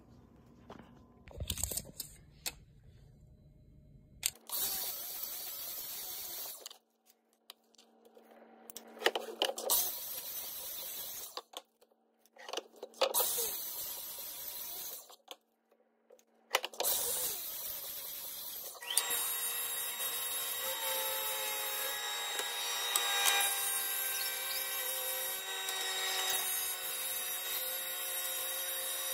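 Power saws cutting wood in short clips. A DeWalt miter saw makes several brief cuts that each start and stop abruptly. From about two-thirds in, a table saw runs steadily with a constant whine.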